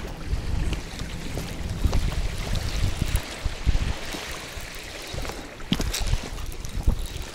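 Wind buffeting the microphone and small waves lapping on the shore, with scattered clicks and rattles from a spinning reel being cranked to bring in a hooked fish.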